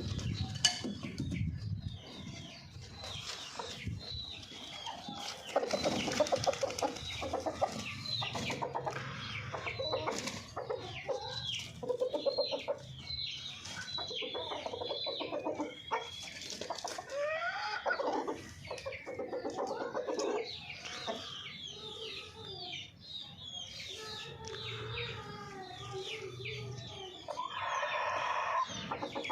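Golden Misri chickens clucking and calling, many short overlapping calls one after another, with a longer held call near the end.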